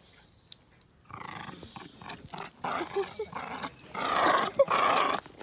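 A dog growling in play, starting about a second in and loudest near the end.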